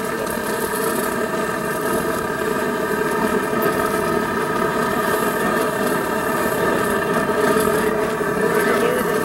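A steady, engine-like droning hum, with the hiss of an aerosol can spraying transmission fluid onto a hot exhaust manifold.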